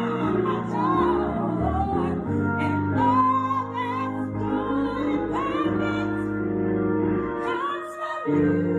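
Gospel song with a woman singing long, wavering held notes over sustained keyboard chords.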